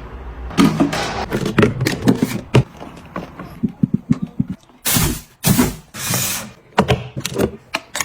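Items being handled and set down while cleaning and restocking: a run of clicks, knocks and light clatter, with three short hissing bursts about five seconds in.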